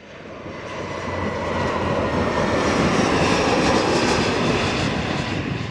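Jet airliner passing close by, its engines growing louder over the first few seconds and easing slightly near the end.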